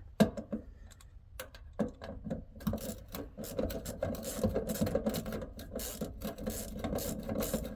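Hand ratchet clicking rapidly as the small bolts of the fuel tank pump unit are run in, with a few scattered clicks first and a steady run of ratcheting after about two and a half seconds.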